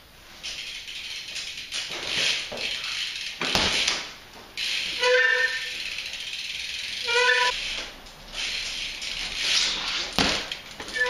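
BMX bike on a concrete floor: tyres scuffing and skidding, with two sharp knocks and three short, high squeaks.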